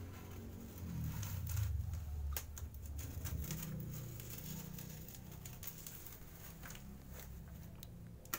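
A blade cutting and scraping through packing tape on a shipping box, with tape and paper crinkling and tearing in short scratchy strokes. A low rumble of hands handling the box comes in the first few seconds, and there is a sharp click near the end.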